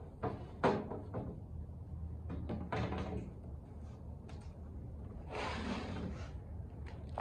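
Welder's plastic case being handled and turned around on a steel workbench: a sharp knock about half a second in, more clunks near three seconds, and a scrape lasting about a second a little past five seconds, over a steady low hum.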